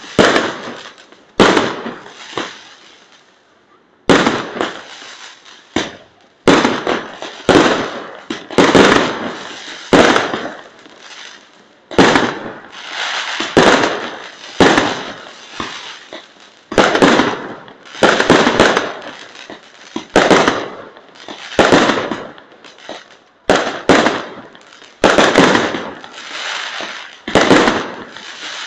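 Aerial fireworks going off in a steady barrage: sharp bangs about every one to two seconds, each fading away in a crackling echo, with a short pause a few seconds in.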